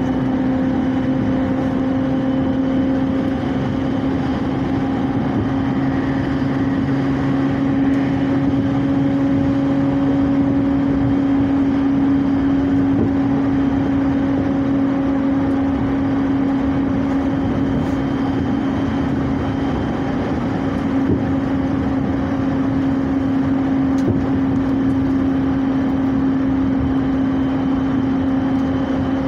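Passenger train running at steady speed, heard from inside the carriage: a constant rumble of wheels on rails with a steady low hum.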